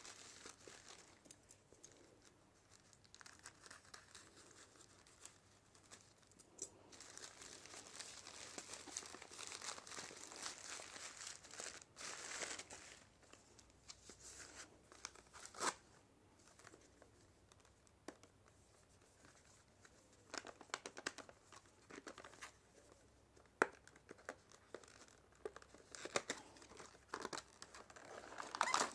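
Plastic parcel packaging crinkling and tearing as it is handled and opened by hand, in bouts of rustling with a few sharp clicks and snaps in the second half.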